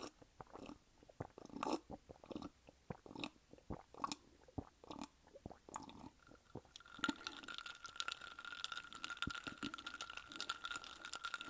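Close-miked chewing and crunching of food: a person's mouth working through crunchy bites in an uneven run of crunches. About two-thirds of the way in, a steady high hum joins it.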